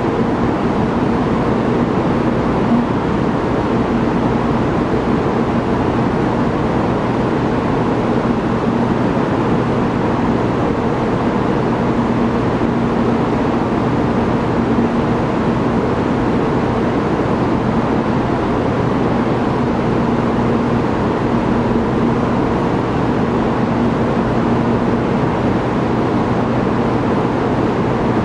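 Steady mechanical hum and rush of an underground railway station platform: an even rumble and hiss with a constant droning hum, unchanging throughout.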